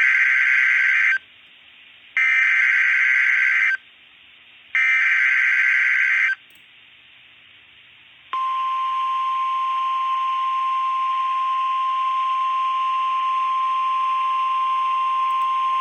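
Emergency Alert System SAME header on a NOAA Weather Radio broadcast: three short bursts of shrill, buzzing digital data tones about a second apart, followed about eight seconds in by the Weather Radio's steady single-pitched warning alarm tone (1050 Hz), which holds without a break. The header and tone open a new alert, a severe thunderstorm warning.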